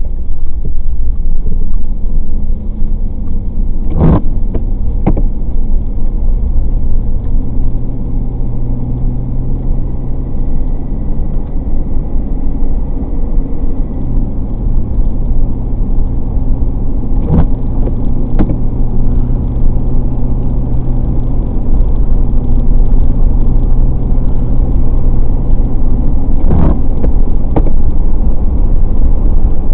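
A car driving in rain: steady road and tyre rumble with a low engine hum. Three times, a pair of short knocks comes about a second apart.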